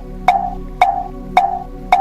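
Vietnamese temple wooden fish (mõ) struck in a steady, even rhythm, about two knocks a second, each knock with a short hollow ring, over a steady low drone. The knocking marks the pace for Buddhist sutra chanting.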